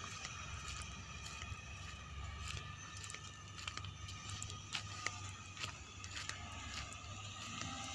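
Diesel engines of a dump truck and excavators working in a sand pit, heard as a steady low rumble with a few faint higher tones and scattered clicks.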